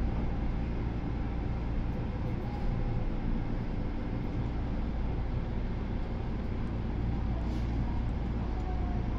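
Nagoya Municipal Subway 2000 series train running underground, heard from inside the car: a steady low rumble of wheels on rail and running gear, with a faint tone showing near the end.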